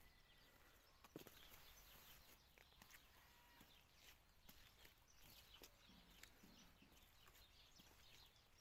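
Near silence: faint outdoor ambience with scattered faint ticks and taps.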